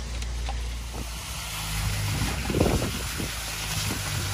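Concrete pump running with a steady low engine hum that gets louder about a second and a half in, as concrete is pushed through the pump hose. There is a rough, rumbling burst a little past the middle.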